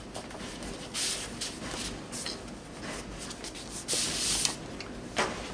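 Paper rustling and scraping as a print is slid out of a large paper envelope: a few short scrapes, then a longer slide about four seconds in, and a sharp crisp rustle near the end.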